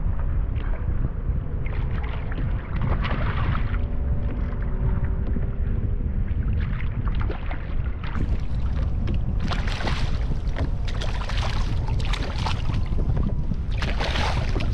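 Wind buffeting the microphone in a constant low rumble. From about halfway in, water splashes again and again as a hooked snapper thrashes at the surface beside the kayak, loudest near the end.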